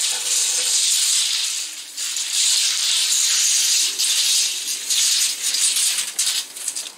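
A long open-reel tape measure being wound in, its tape running over a concrete slab: a steady rattling hiss that dips briefly a few times.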